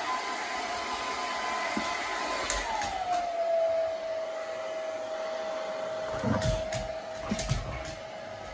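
Hair dryer blowing steadily. About three seconds in, its whine drops in pitch and settles lower. A few dull low thumps come in the second half.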